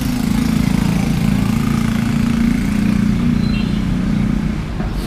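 An engine idling close by, a steady low hum that weakens near the end.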